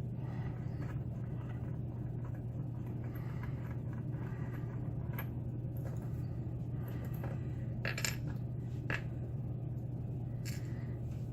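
Light metallic clicks and clinks from a pin-tumbler lock and lock picks being handled, with a few sharper clicks near the end, over a steady low electrical hum.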